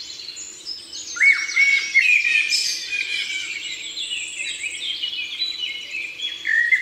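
Several small birds chirping and singing at once, a dense tangle of quick, high chirps that gets louder about a second in.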